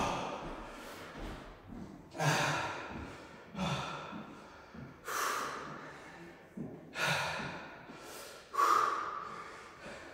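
A man breathing hard from exercise, with a deep exhale about every second and a half.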